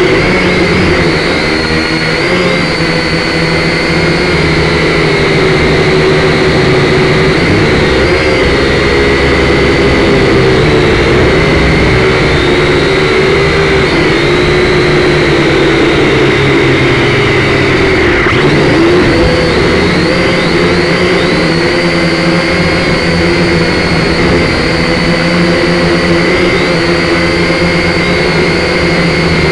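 Syma X5C quadcopter's four small motors and propellers whining as it flies, heard up close through its onboard camera. The pitch keeps wavering up and down.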